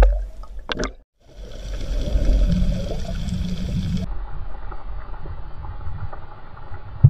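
Muffled underwater ambience picked up by a camera in a waterproof housing: a steady low rush of water noise, broken by a brief dropout about a second in and a change in tone near the middle.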